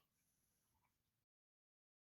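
Near silence: the audio is muted, with only a faint trace of room tone in the first second.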